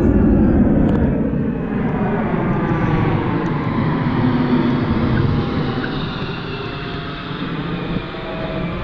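Large jet aircraft flying low overhead, a loud, steady engine rush that is strongest at first and slowly fades as it passes.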